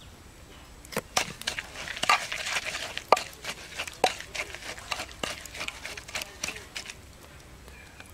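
Wooden pestle pounding and stirring chilli paste in a wooden mortar: irregular dull knocks with wet mashing in between, starting about a second in and stopping about a second before the end.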